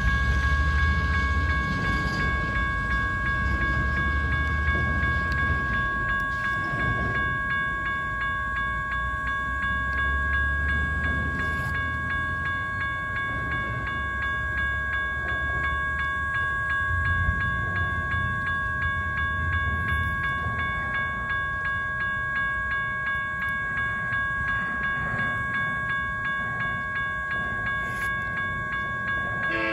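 Railroad crossing warning bell ringing on and on in quick, even strokes while the crossing is activated for an approaching train. Gusts of low wind rumble on the microphone come and go.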